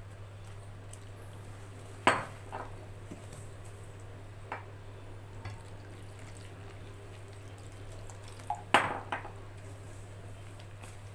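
Kitchenware clinking against a mixing bowl while warm water is added to zalabya batter: two sharp clinks, about two seconds in and near the end, with a few lighter taps between, over a steady low hum.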